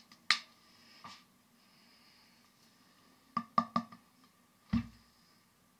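Glass baking dish being handled: a few sharp clinks and knocks, a quick cluster of them about three and a half seconds in, and a duller, heavier thump nearly five seconds in.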